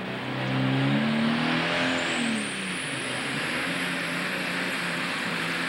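Alcohol-burning super stock pulling tractor's engine revving up under load as it hauls the sled, dipping briefly about two seconds in and then running steady at high revs. A high whine climbs over the last few seconds.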